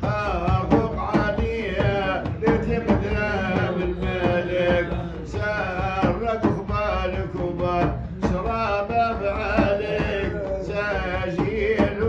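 Music of a Sufi praise song (madih): a wavering melodic line carried over a steady drum beat.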